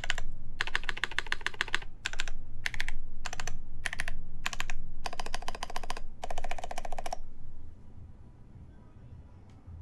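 Typing on a Haytco CAKE60 mechanical keyboard with lubed Epsilon switches in a full acrylic plate, under GMK keycaps: quick runs of key clacks in short groups, stopping about seven seconds in.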